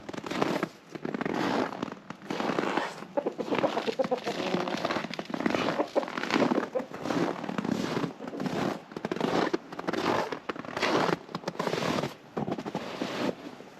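Footsteps crunching and squeaking on cold, dry snow, a steady walking pace of about one and a half steps a second.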